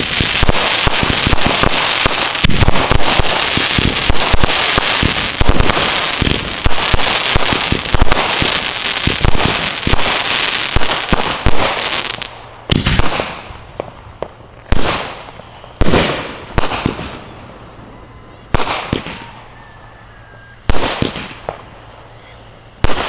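Fireworks going off: a dense, continuous barrage of crackling bangs for about the first twelve seconds, then single loud bangs every second or two, each trailing off.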